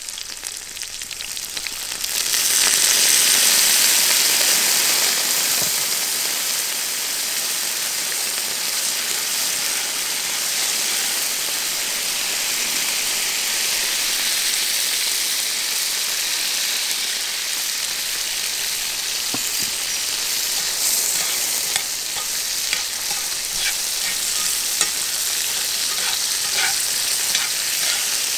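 Food frying in oil in a cast-iron skillet over a campfire: a steady sizzle that turns loud about two seconds in. Later, metal tongs click and scrape in the pan as seafood is stirred.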